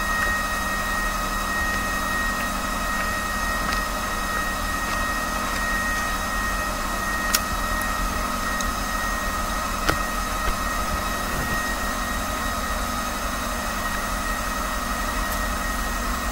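Steady machine hum with a constant high whine, broken by two brief clicks.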